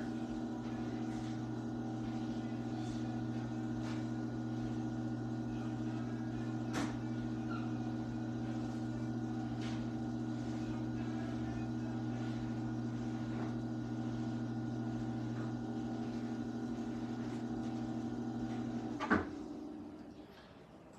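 Electric potter's wheel running at a steady speed, its motor giving a steady hum, with a faint click about seven seconds in. A sharp click comes near the end, and then the hum fades as the wheel winds down.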